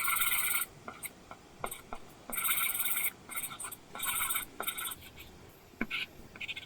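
Apple Pencil stroking across an iPad screen covered with a paper-texture screen protector: a run of short scratchy drawing strokes with brief pauses between them, and a few light taps of the pencil tip near the end.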